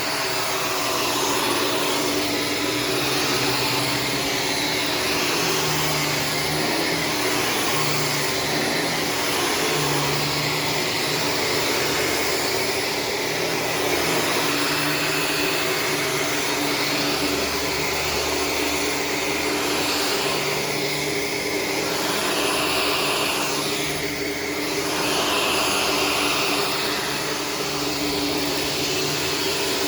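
Shark Stratos self-cleaning vacuum cleaner running steadily on the floor, its sound swelling and dipping slightly every couple of seconds.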